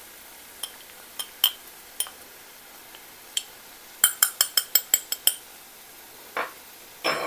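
Metal spoon clinking against a small ceramic ramekin while stirring a dry spice mix: a few scattered clinks, then a quick run of about eight about four seconds in.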